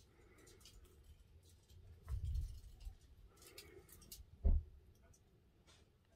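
Scattered faint clicks and taps, with a dull low thump about two seconds in and a sharper, louder knock about four and a half seconds in.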